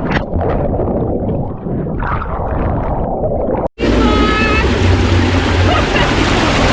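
Loud rushing water and rumble of a waterslide ride, buffeting the microphone. The sound cuts out sharply for an instant a little past the middle, then comes back as a steadier, louder rush.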